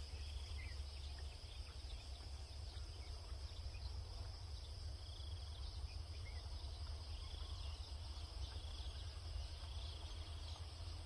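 Steady high-pitched insect trill, crickets or similar field insects, with a few faint short chirps over it and a low steady rumble underneath.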